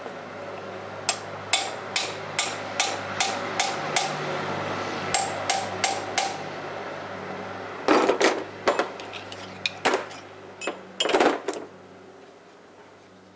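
Hammer striking an old injector used as a drift, pressing a new injector sleeve into a D110 engine's cast cylinder head. First comes a steady run of taps, about two or three a second. After a short pause come a few heavier blows, some in quick clusters.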